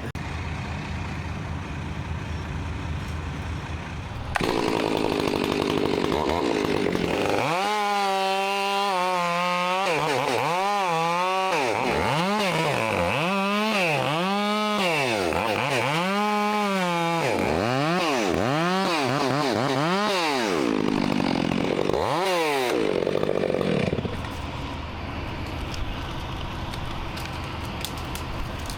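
A chainsaw starts about four seconds in and cuts through a branch, its engine speed rising and falling again and again as it works through the wood, until it stops a few seconds before the end. The crane truck's engine runs steadily underneath.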